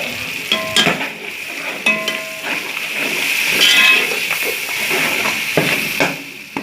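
Onion-tomato masala with spices sizzling in hot oil in a pot while a metal spoon stirs it, with a few ringing clinks of the spoon against the pot.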